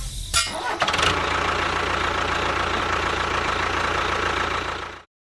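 An engine running steadily, with a low rumble and a faint steady whine, after a couple of sharp knocks near the start; it cuts off abruptly just before the end.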